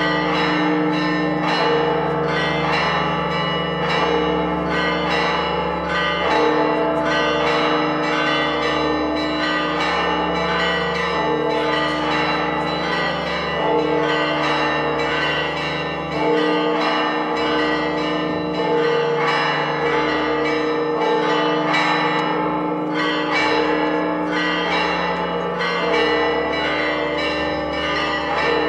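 Church bells pealing: many strokes in quick succession, the tones ringing on and overlapping without a break. It is the festive peal rung once the Holy Fire has come out of the Edicule.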